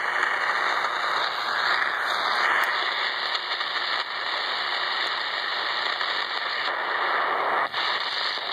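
Shortwave radio receiver hissing with static while being tuned across the band between stations: a steady rush of noise, with a brief dropout near the end.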